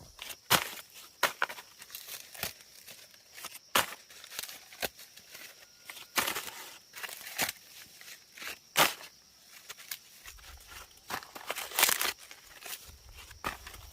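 Dry plant material being torn and snapped by hand: sharp snaps and short rustling tears at irregular intervals, about a dozen of them.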